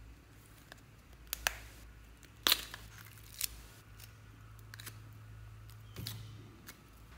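Small plastic slime tub being handled and opened: a series of sharp plastic clicks and snaps, the loudest about two and a half seconds in, over a faint low hum.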